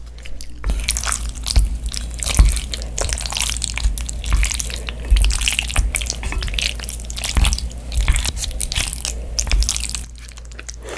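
Wooden chopsticks stirring and lifting cream-sauced pasta noodles on a plate right at the microphones: a busy run of wet sounds and sharp clicks that stops about ten seconds in.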